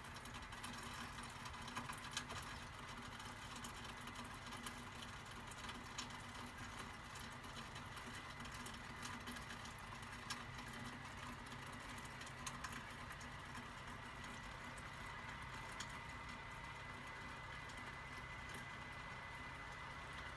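Light rain pattering and dripping: many small irregular drop ticks over a faint steady hiss.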